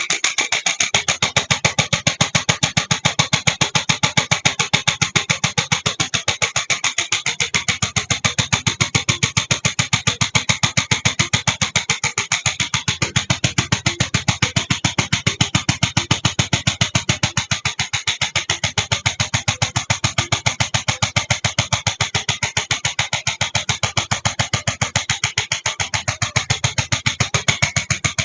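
Electric chiropractic adjustment gun (750 N impulse instrument) firing continuously, a fast, even train of sharp taps.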